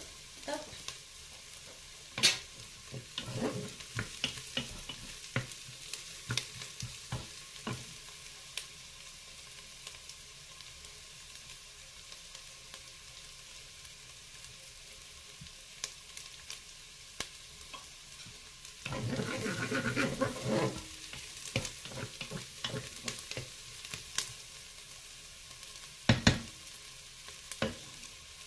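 Onions and shallot sizzling in butter in a Cookeo multicooker's bowl on browning mode: a steady soft hiss with scattered crackles and pops. A louder rustling clatter comes about two-thirds of the way through, and a sharp knock near the end as a wooden spatula is worked in the pot.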